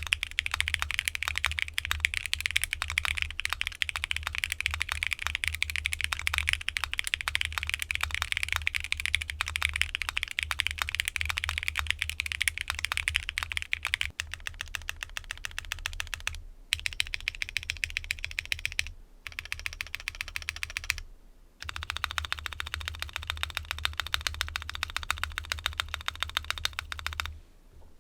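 Fast, continuous typing on a Mode Envoy mechanical keyboard fitted with linear switches (aluminum case, FR4 plate, DCX keycaps). The keystrokes come as a dense run of clacks, with a few brief pauses and a softer stretch about halfway through.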